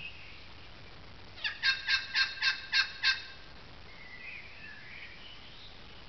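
A bird call: a rapid run of about seven short, evenly spaced notes, roughly four a second, lasting a second and a half. Fainter, gliding calls from other birds follow it.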